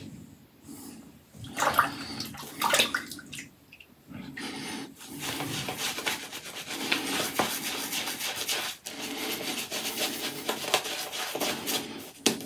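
Apshave Cashmere 28mm shaving brush working shaving-soap lather on a face: a wet swishing of bristles through the lather, full of fine crackle. It comes in a few short strokes at first and runs continuously from about five seconds in.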